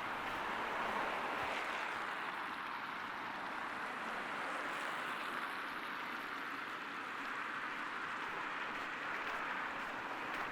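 Steady outdoor street ambience: an even rushing noise with no distinct events.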